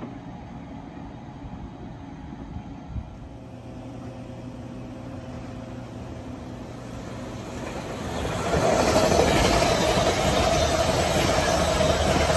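Metro-North push-pull passenger train, coaches leading, approaching and running past close by. A faint low rumble grows over several seconds, then about eight and a half seconds in the noise of the wheels on the rails jumps to loud and stays steady as the coaches pass.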